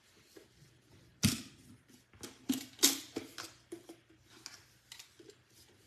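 Sharp clicks and knocks of a stainless steel canister with a clamp-down lid being handled, the metal clasp and lid clinking; one sharp click about a second in is the loudest, followed by a string of smaller clicks.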